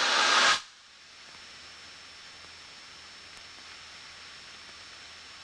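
Hiss on the cockpit headset audio that cuts off sharply about half a second in, leaving a faint steady hiss with a thin high tone.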